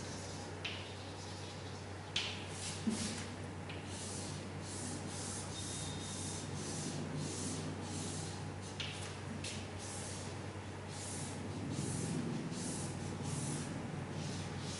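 Chalk on a blackboard: quick, irregular strokes scratching and tapping as a bar of a chart is shaded in dark. A low steady hum runs underneath.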